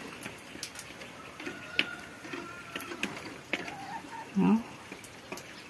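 Quiet pig-pen ambience: scattered light clicks and taps, with one short low grunt-like call about four and a half seconds in.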